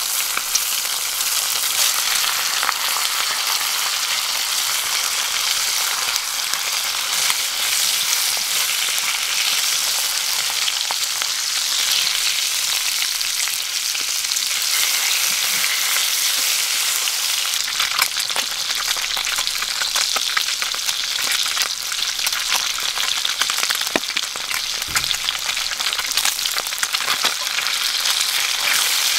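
Bacon and crappie fillets frying in a cast-iron skillet over a campfire: a steady sizzle of hot bacon fat, with scattered small spits and pops. A wooden stick pushes the fish around the pan.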